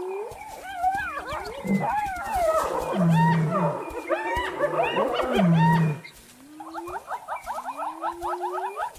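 Spotted hyenas calling: rising whoops and a squabble of yelps, whines and cackling calls that stops suddenly about six seconds in, after which single rising whoops carry on every second or two.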